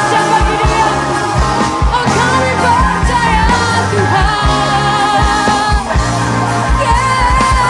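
Christian worship song: a singer's voice carries the melody over a full band, with sustained bass and a steady kick-drum beat.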